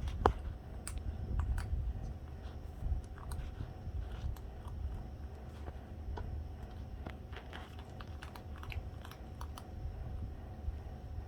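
Cats chewing dry cat food: irregular small crunches and clicks, over a low rumble.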